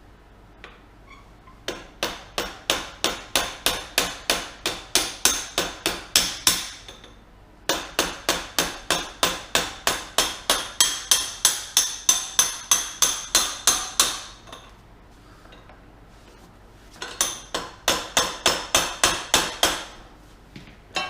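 Hammer striking a steel drift in quick, ringing metallic blows, about four a second, in three runs with short pauses between them, driving out a motorcycle's front wheel axle.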